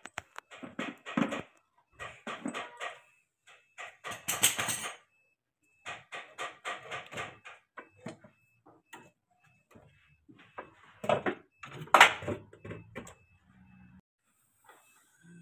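Hand tools working on the engine-mount bolts: runs of quick metallic clicks and clanks, with two louder knocks about four and twelve seconds in.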